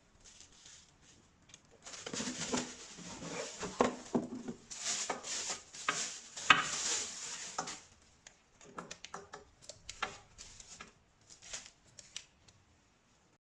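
Irregular light clicks, knocks and scrapes of hard objects being handled, busiest in the middle and thinning out towards the end; no motor is running.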